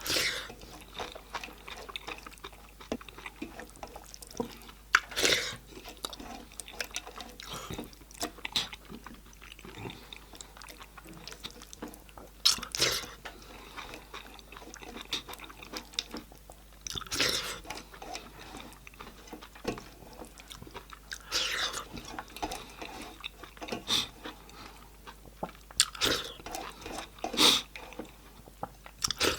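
Close-miked eating sounds: continuous wet chewing and mouth clicks while eating a goat-head meal, with several louder sharp bursts of biting or sucking spread through.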